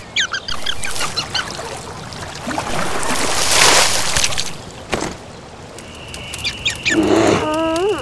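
Cartoon sound effects: a run of quick, high squeaky chirps, then a loud rushing splash about halfway as a fish is yanked out of the water. Near the end a steady high tone sets in and a short rising honk-like cartoon call sounds.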